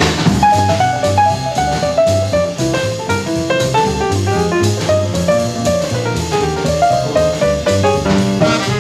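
Bebop jazz from a 1953 quintet studio recording of alto saxophone, trumpet, piano, double bass and drums: a quick line of short, stepping notes over walking bass and drums.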